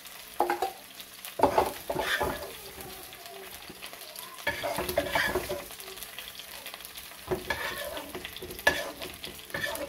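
A spoon scraping and knocking against a hot non-stick frying pan in a run of short strokes as cooked greens are scooped out into a steel bowl, with the pan sizzling.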